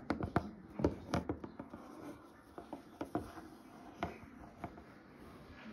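Hard plastic toy animal figurines tapping and scraping on a wooden tabletop as they are moved along it: a quick run of clicks in the first couple of seconds, then scattered taps.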